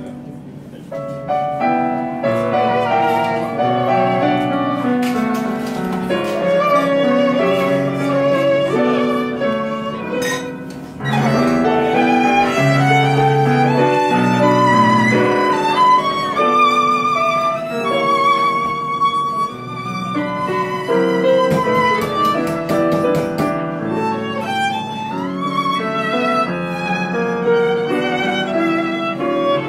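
Live violin and piano duo playing: the violin carries the melody, some long notes held with vibrato, over the piano's accompaniment.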